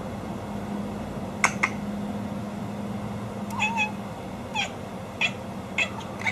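Domestic cat making short, high, odd-sounding calls, about eight in all, several in quick pairs, over a steady low hum.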